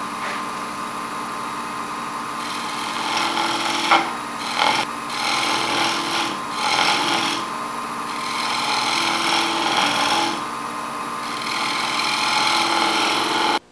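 Wood lathe running with a steady hum while the tip of a turning tool scrapes the spinning wooden sphere. The scraping hiss begins a couple of seconds in and comes and goes over several passes with short breaks as the tool touches and lifts off the wood.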